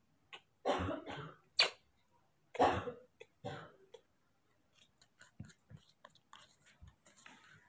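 A run of loud coughs in the first three seconds or so, followed by soft scattered clicks and taps.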